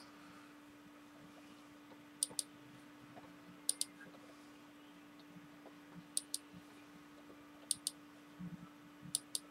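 Computer mouse button clicking: five quick double clicks about a second and a half apart, each a press and release, as line pieces are selected one at a time in CAD software. A faint steady hum underneath.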